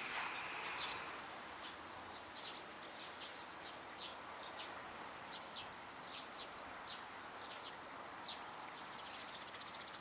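Small birds chirping in the distance, short scattered high chirps over a faint steady outdoor hiss. Near the end, a quick buzzy run of ticks.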